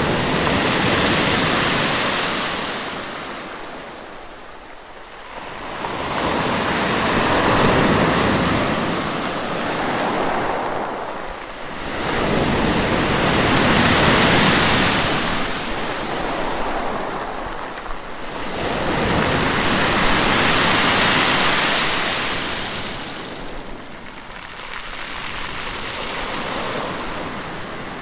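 Sea waves breaking and washing in on a shore, each surge swelling and fading about every six seconds, five in all.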